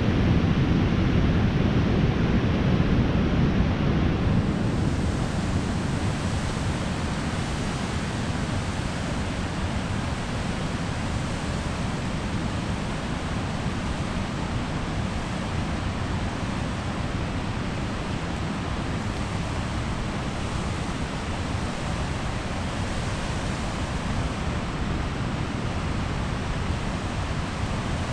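Creek water rushing over rocks and small rapids, a steady hiss. A heavier low rumble sits under it for the first four seconds or so.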